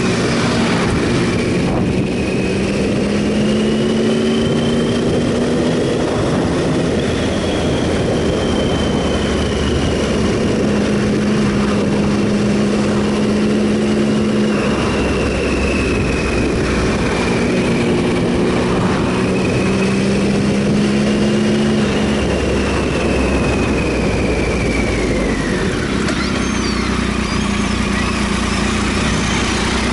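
Triumph Sprint ST 1050's three-cylinder engine running under way over steady wind rush, its note climbing and dropping several times. Near the end the pitch falls away and settles to a lower, steady note.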